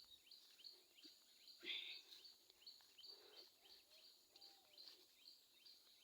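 Faint songbirds chirping in woodland, a short high chirp repeating about two or three times a second, with a brief louder sound near two seconds in.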